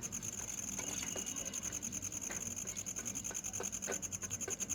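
Soaked chickpea lentils being scooped and tipped into a pressure cooker, making irregular small wet taps and patters against the pot, over a steady faint high whine.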